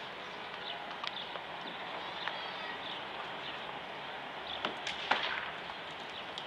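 A horse's hoofbeats on a sand arena as it canters, with a few sharp snaps about five seconds in.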